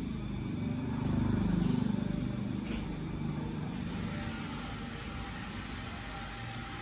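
Low rumble of a passing motor vehicle, growing louder about a second in and easing off after about three seconds.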